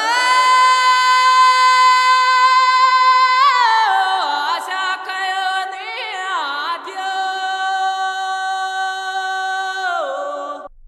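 A solo unaccompanied voice singing long held high notes, with winding turns in pitch between them. It stops shortly before the end.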